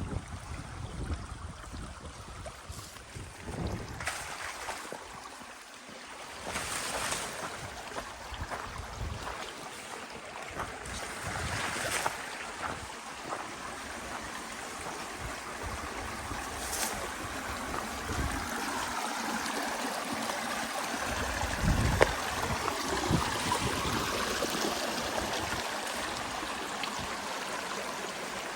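Stream water rushing steadily, growing louder in the second half, with wind buffeting the microphone at times and a few brief knocks.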